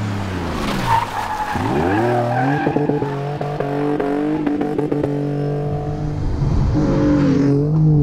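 Jaguar S-Type X200 rally car's engine dropping in revs as it brakes for a corner, with a short tyre squeal about a second in. The revs then climb as it accelerates away and settle to a steady pitch.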